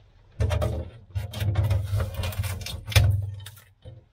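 Rough scraping, rustling and tearing as old carpet and sound-deadening underlay are pulled up off a VW Beetle's floor pan, in two stretches with the loudest pull near the end.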